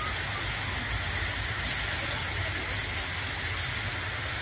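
Torrential rain pouring down and floodwater running along a street: a steady, even hiss with a low rumble underneath.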